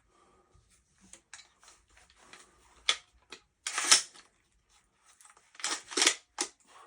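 Metal clicks and clacks of a Panser EGX 500 12-gauge bullpup shotgun's action worked by hand, its charging handle pulled back stiffly with the magazine seated. The sharpest clacks come about three and four seconds in and again around six seconds.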